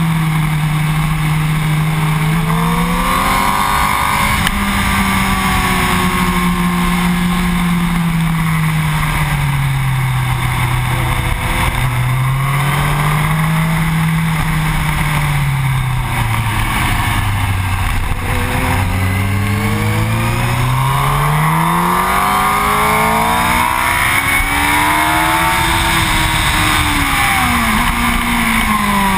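Yamaha R1's inline-four engine ridden hard at speed, its pitch climbing over several seconds as it accelerates, then dropping as it slows, several times over, with a deep low point a little past halfway and a long climb after it. Steady wind rush over the fork-mounted microphone runs underneath.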